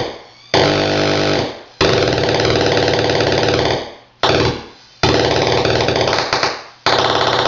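Atari Punk Console, a 555-timer square-wave noise synth with a starve control, making a harsh, dense buzzing tone. The buzz comes in about five bursts, each starting abruptly and dying away or cutting out after half a second to two seconds.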